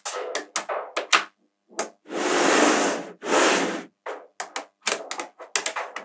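Small magnetic balls clicking and snapping together as strips of them are handled and set down on a hard table, a run of sharp clicks. About two and three seconds in come two longer rasping rattles, each lasting about a second.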